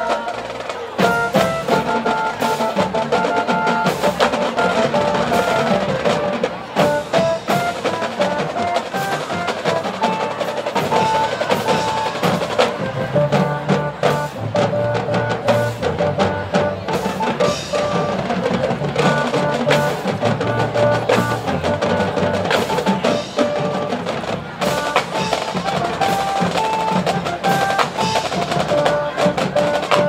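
Marching band drumline playing a percussion feature: rapid snare and bass drum hits over pitched melodic notes.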